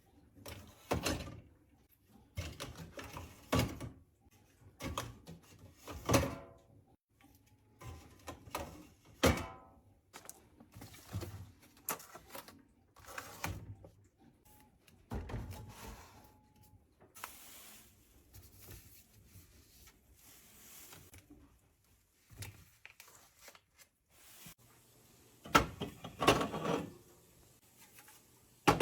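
Groceries and containers being set into a refrigerator: a series of separate knocks, thunks and clinks, some with a brief ring, with the loudest clatter near the end.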